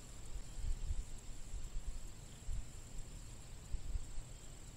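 Quiet outdoor ambience: a steady high-pitched insect trill, with irregular low rumbling on the microphone.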